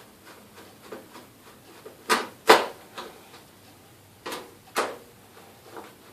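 Knocks and clacks of a desktop computer case being handled and closed up: two pairs of sharp knocks, about two seconds in and again past the four-second mark, with lighter clicks between.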